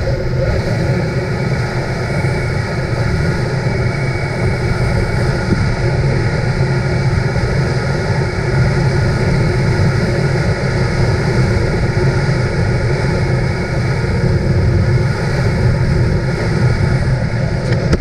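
Motorcycle engine running steadily while the bike is ridden along the road, with wind rushing over the microphone.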